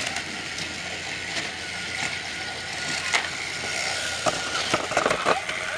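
Battery-powered TrackMaster toy train motor whirring steadily as the engine runs along plastic track. Several sharp plastic clicks and clacks come in the last second or so.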